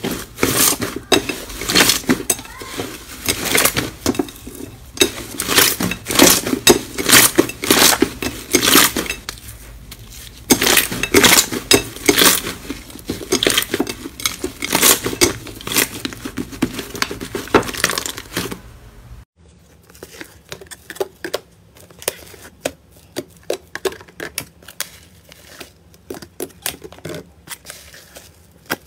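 Hands kneading and squeezing a sticky slime in a glass bowl: dense, loud runs of wet crackles and pops as the slime is pressed and pulled. About two-thirds of the way through it cuts to a much quieter stretch of sparse, faint crackles.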